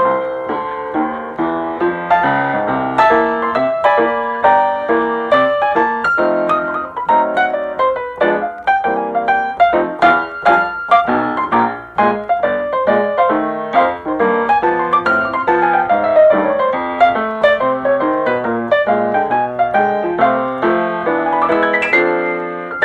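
Background piano music with quick flowing runs of notes.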